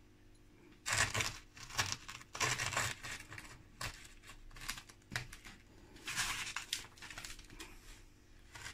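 Dragon stone (Ohko rock) pieces being moved and pressed into sand by hand: gritty scraping and crunching in irregular bursts, with a few sharp clicks of stone.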